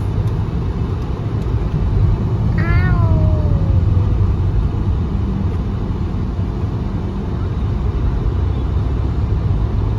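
Steady low rumble of a car on the road, with one short cry about two and a half seconds in that falls in pitch.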